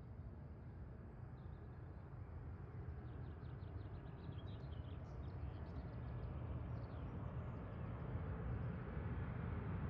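Distant Boeing 737-800 jet on approach, a low rumble of its engines growing steadily louder as it comes in to land. Birds chirp faintly over it in the middle.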